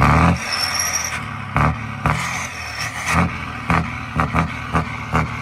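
Scania 113 truck's diesel engine idling, blipped with short throttle stabs at uneven intervals of about half a second to a second.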